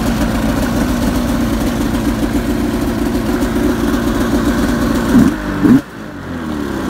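2011 Arctic Cat M8 snowmobile's 800 H.O. two-stroke twin idling steadily, then blipped twice on the throttle about five seconds in before it settles back to idle.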